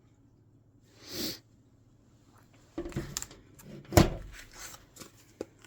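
Handling noises on a work surface: a short breathy noise about a second in, then a run of clicks and knocks from small objects and a mixing stick being picked up and set down, the sharpest a single knock about four seconds in.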